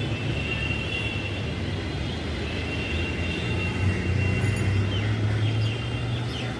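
City road traffic: vehicle engines running steadily, with a low hum that grows louder about four seconds in.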